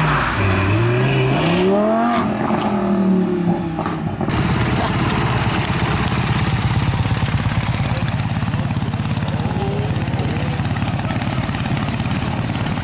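A racing engine revs, its note climbing and then falling back over about two seconds. About four seconds in it cuts off abruptly to a steady, low engine drone.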